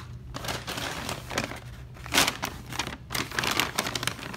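Paper takeout bag crinkling and rustling as it is handled, in irregular bursts, loudest about two seconds in.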